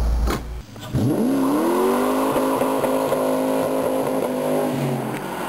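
Car doing a burnout. A low rumble first, then about a second in the revs rise sharply and hold high and steady while the rear tyres spin and smoke.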